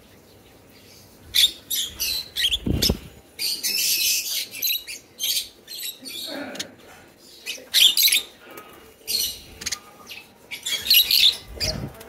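A flock of caged lovebirds chattering with many short, high-pitched chirps and squawks, with a wing-flapping flurry about three seconds in and again near the end.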